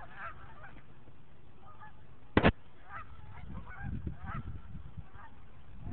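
A flock of geese honking repeatedly on a lake, over a low rumble. About two and a half seconds in, a short, sharp knock is the loudest sound.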